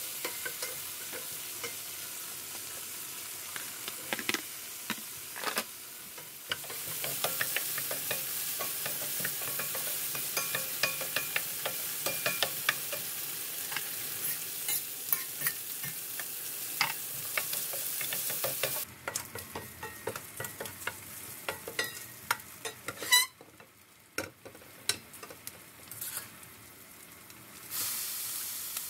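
Food sizzling in a hot pan while being stirred, with frequent clicks and scrapes of a utensil against the pan. About two-thirds of the way through, the sizzle mostly drops away and the stirring clicks go on more quietly, with one sharp knock. Near the end the sizzle returns.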